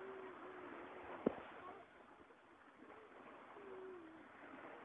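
Faint seashore ambience: small waves washing on the beach and distant voices of swimmers, with two long drawn-out calls and a single sharp click about a second in.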